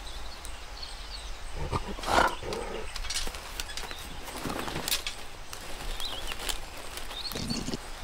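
A cartoon bear character making short grunts and vocal strains while lugging a golf bag, the loudest about two seconds in, over a background of faint bird chirps.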